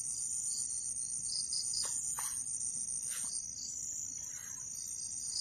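Steady, high-pitched chorus of night insects trilling, with a few faint ticks around the middle.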